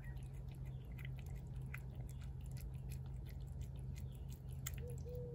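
Cat chewing shredded chicken off a plate, with irregular chewing clicks, over a steady low hum.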